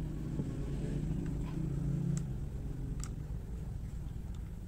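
A few faint metallic clicks from the parts of a big-game conventional fishing reel being handled and fitted together during reassembly, over a steady low background rumble.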